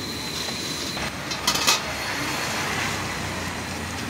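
Steady background noise of a busy street, with a brief loud clatter about a second and a half in.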